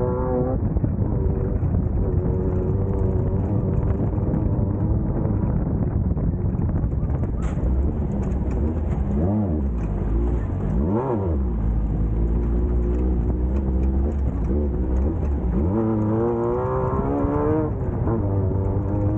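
Race buggy's air-cooled 1600cc VW-type engine running hard off-road, its revs dipping and climbing sharply twice near the middle, then climbing and dropping again near the end, over a steady heavy rumble.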